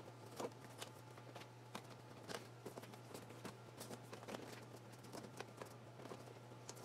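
Faint, scattered ticks and rustles of thin hookup wire and paper being handled and twisted together on a workbench, over a steady low hum.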